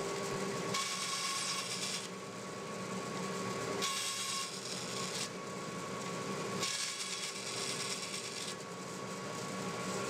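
Bandsaw running with a steady hum while its blade cuts into a small African blackwood crosspin three times. Each cut is a hiss lasting one to two seconds: one about a second in, one around four seconds, and a longer one near seven seconds.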